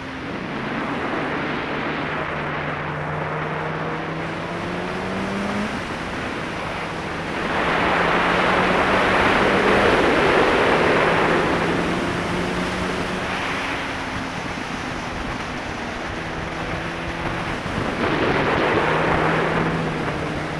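Sport bike engine running under way, its pitch climbing and easing as the throttle is worked through the bends, mixed with heavy wind noise on the microphone that swells loudest about a third of the way in and again near the end.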